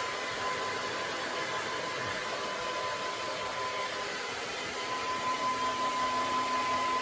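Handheld electric hair dryer running steadily: a rushing of air with a thin, steady whine.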